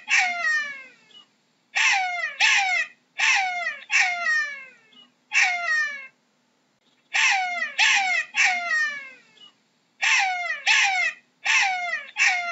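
Jackal calling: about a dozen short, high cries, each sliding down steeply in pitch, given in quick bouts of one to three with brief pauses between.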